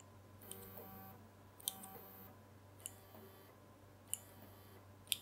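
Two stepper motors driven by A4988 drivers faintly whining at several steady pitches as they are jogged with a joystick, mostly in the first two seconds. Four sharp ticks come a little over a second apart.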